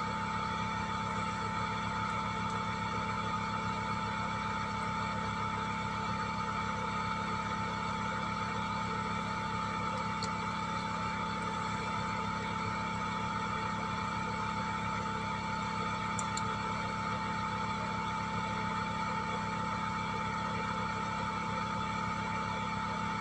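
Steady hum of a small electric motor running at constant speed, with a continuous high whine over a low drone. Two faint ticks come partway through.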